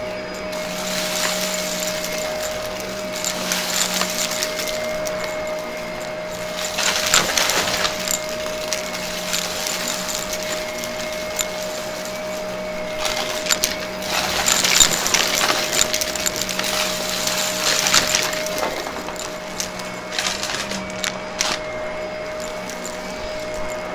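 Shark upright vacuum cleaner running on carpet with a steady motor whine. Several bursts of rattling clatter come as the brushroll sucks up beads, sequins and grit, the longest in the middle of the stretch. Heard through a microphone fixed to the vacuum's handle.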